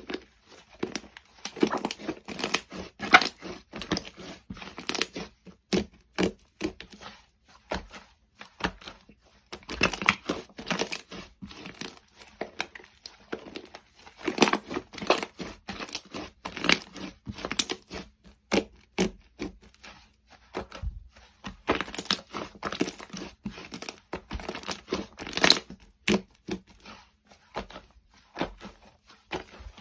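Slime being squished and stretched, giving sticky crackling and clicking in repeated bursts.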